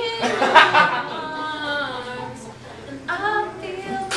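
A person's voice without clear words, in short pitched phrases, once near the start and again about three seconds in.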